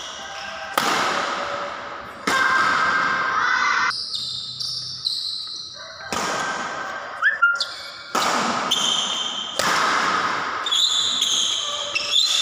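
Badminton rackets striking a shuttlecock in a rally, about six sharp hits a second or two apart, each ringing on in a large echoing hall. Between the hits, shoes squeak on the court floor.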